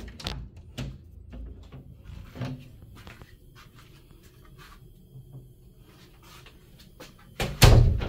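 A scatter of light clicks and knocks, then one much louder thump near the end, like a door or cupboard banging shut.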